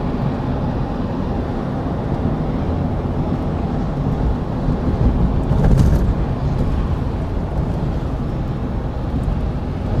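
Steady road and tyre noise with engine hum inside a car cabin at about 40 mph on a highway, with a brief louder swell about halfway through.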